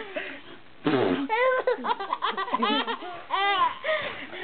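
A baby of about three and a half months laughing in short bursts as he is tickled, mixed with a woman's playful high-pitched noises made to set him off.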